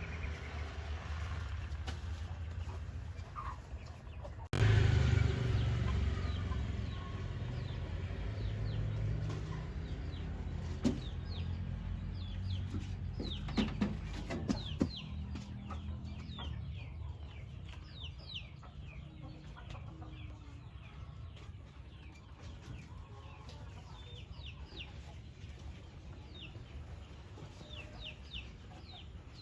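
A machine engine running with a steady low hum, which gets louder suddenly about four and a half seconds in. Chickens cluck and chirp over it through the second half.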